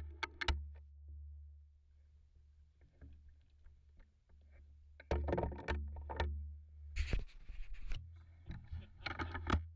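Handling noise from a camera mounted on a shotgun as the gun is moved about: a steady low wind rumble with scattered knocks, rubs and sharp clicks, busiest in the second half.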